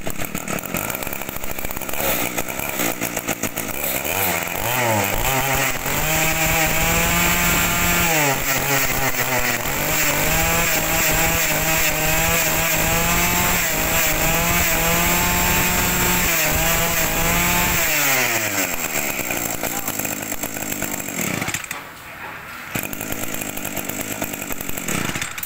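Kioritz 253 two-stroke brush cutter engine running, throttled by hand at the carburettor. It revs up a few seconds in and is held high with a brief dip, then falls back to a low idle over the last several seconds.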